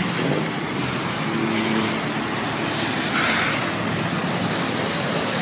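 Traffic driving through a flooded street: tyres swishing through standing water over a low engine hum, with a brief louder rush of water about three seconds in.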